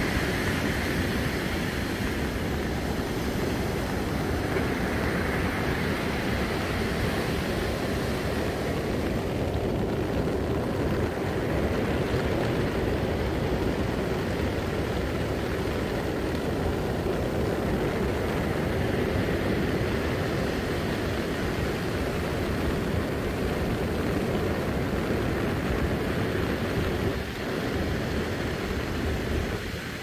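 Storm surf breaking on a sandy shore, a steady rush of waves, with strong wind buffeting the microphone as a low rumble.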